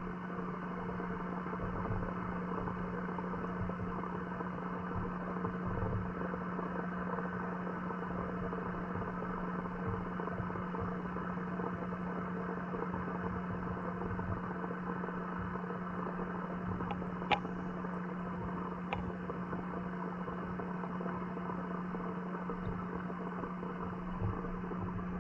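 Steady hum and hiss heard underwater in a garden pond, muffled, with a few faint sharp clicks a little past the middle.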